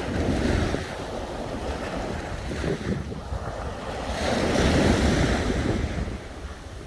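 Sea waves washing onto the shore, with wind rumbling on the microphone; one wave swells louder and breaks about four seconds in.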